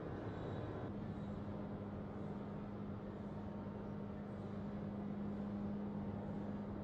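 Steady industrial hum of forge-shop machinery, with a constant low drone coming in about a second in and holding.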